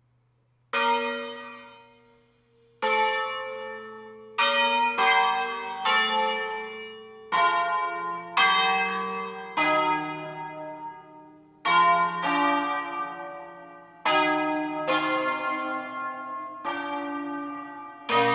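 Peal of eight tuned church bells in B-flat, cast by Fratelli Barigozzi of Milan in 1894, rung in concerto style: single strokes, one bell at a time, in a melodic sequence. After a second of quiet the strokes begin, about fourteen of them at uneven spacing, each ringing out and overlapping the next.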